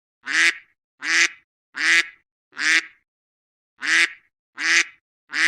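An added sound effect: the same short, nasal, quack-like call repeated four times about three-quarters of a second apart, then, after a short pause, three more times, with dead silence between calls.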